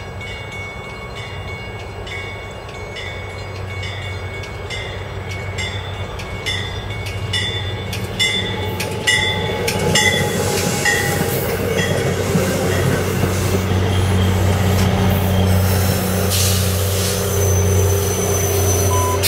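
A MARC commuter train goes by. A train bell rings steadily about once a second and drops slightly in pitch as it passes. About halfway through, the EMD GP39H-2 diesel locomotive, with its rumbling engine and wheels on rail, passes close by and grows louder.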